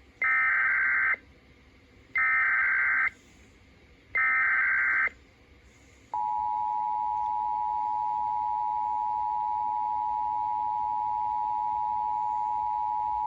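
Emergency Alert System SAME header: three bursts of shrill data tones, each about a second long and two seconds apart, then the steady two-tone EAS attention signal starting about six seconds in. Together they mark the start of an alert broadcast, here a Blue Alert cancellation.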